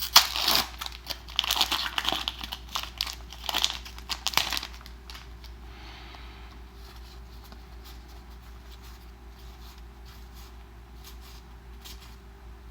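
Foil wrapper of a Magic: The Gathering booster pack crinkling and tearing as it is opened, for about the first five seconds, then only faint rustles of handling.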